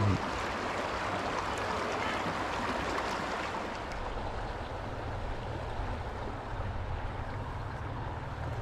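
Flowing river water rushing and splashing over rocks in the shallows, strongest in the first few seconds, with a steady low rumble that gets stronger about halfway through.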